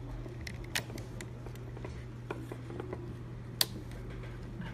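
Small clicks and ticks of a precision screwdriver turning a tiny screw into the metal gimbal mounting plate of a DJI Phantom 3 Standard, along with fingers handling the drone's plastic and metal parts. A sharper click comes about three-quarters of a second in and another about three and a half seconds in, over a steady low hum.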